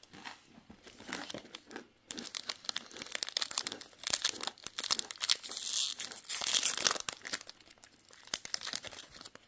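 A foil-lined plastic snack wrapper crinkling and tearing as it is pulled open by hand: a dense, rapid crackle that grows louder in the middle and eases off near the end.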